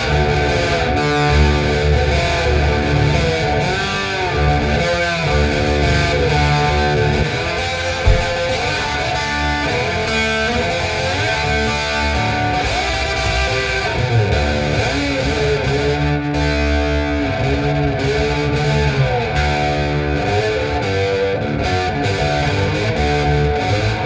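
Electric guitar instrumental: layered guitar lines with notes bending in pitch, over a heavy low end.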